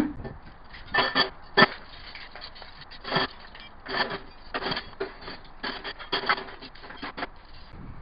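Metal cutlery and kitchen utensils clattering as they are dropped and packed into a microwave's metal cavity, in a string of separate ringing clinks and rattles about every half second to a second.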